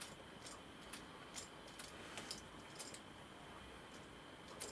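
Faint, irregular light clicks and taps from small plastic kit parts and tools being handled on a workbench, scattered through the stretch.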